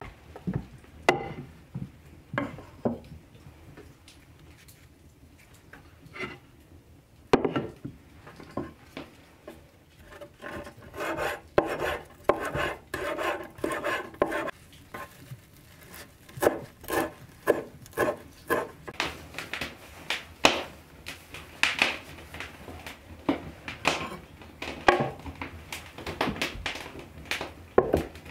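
A kitchen knife chopping fresh herbs on a wooden cutting board, heard as repeated irregular knocks of the blade on the wood. A few knocks of wood and crockery being set down come in the first seconds.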